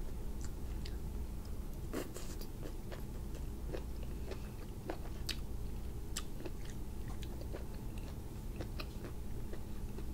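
Close-up chewing of grilled cuttlefish: short mouth clicks and smacks scattered irregularly, over a steady low hum.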